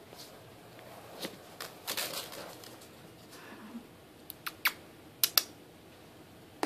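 A ferret moving in a clear plastic tub of dry rice: the rice grains rustle and shift, then a few sharp clicks come in the second half as her claws tap on the tub's plastic wall.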